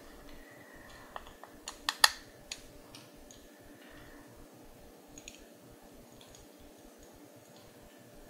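A few small, sharp clicks and taps from handling tools and parts at the workbench, bunched between about one and two and a half seconds in with the loudest near two seconds, then a couple of faint ticks; otherwise a low, quiet room background.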